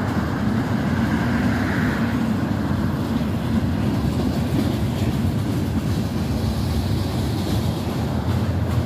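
Freight train cars rolling past on the rails, a steady rumble of wheels on track.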